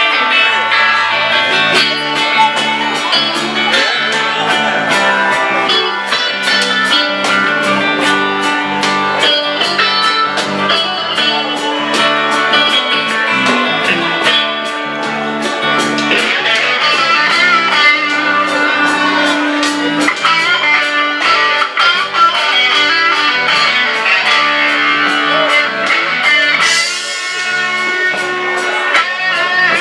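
Live southern rock band playing an instrumental passage: electric guitars over a drum kit, with a cymbal crash near the end.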